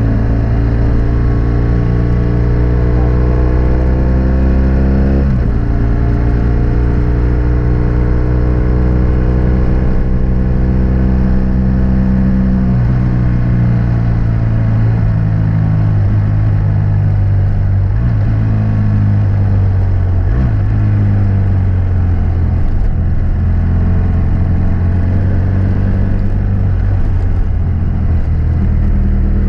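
A 2006 BMW F800S's parallel-twin engine running through a GPR Furore Nero exhaust with its dB-killer fitted, under way. The engine note climbs, drops sharply about five seconds in, climbs again and drops about twelve seconds in, then rises and falls with the throttle.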